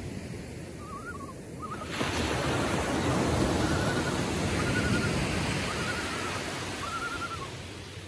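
Loons calling in flight: about five short, wavering, quavering calls in a row, over the wash of small surf. A wave breaks about two seconds in and its wash runs on under the calls.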